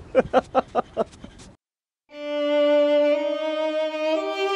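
A man's voice for about a second and a half, then a sudden cut to silence and a mock-mournful violin sting added in editing: long held bowed notes that step up in pitch near the end and stop abruptly.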